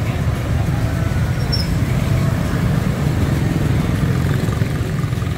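Steady, dense street traffic, mostly motor scooters passing close, a continuous wash of small engines and tyres.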